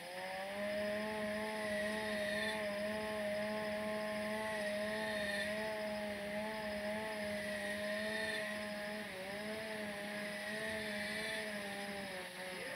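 A small engine running at a fairly steady speed, its pitch rising as it picks up at the start and dipping briefly twice toward the end.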